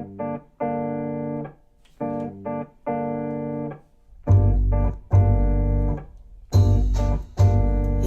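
Music: a keyboard intro of held chords in a stop-start rhythm. Deep bass joins about halfway, and drums come in near the end.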